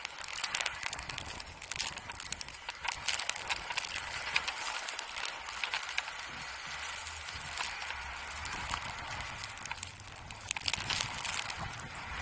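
Ski edges scraping and crunching on hard, wind-packed snow as a skier side-slips slowly down a steep slope, with many irregular sharp clicks and crackles over a steady hiss.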